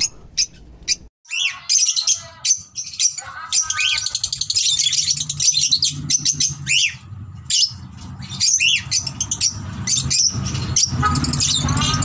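African lovebirds chirping rapidly, many quick high calls overlapping, some swooping up and down in pitch. A few sharp clicks come near the start, and a low steady hum joins underneath a few seconds in.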